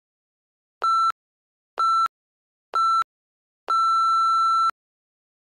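Interval-timer countdown beeps marking the end of a work interval: three short electronic beeps about a second apart, then one longer beep of about a second at zero.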